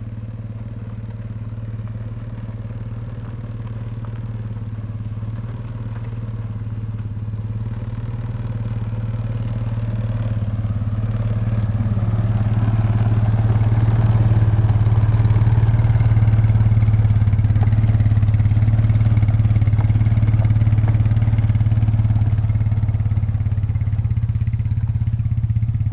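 Four-wheeler (ATV) engine running steadily as it tows a canoe trailer, growing louder through the first half and then holding at a steady drone.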